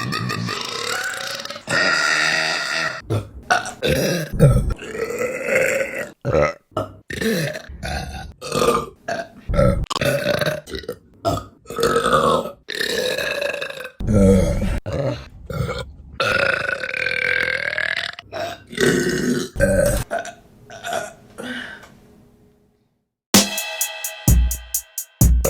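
A rapid run of women's burps, one after another, some short and sharp and a few long and drawn out, each with its own pitch. Near the end they stop, and after a brief silence electronic music with a fast, even beat starts.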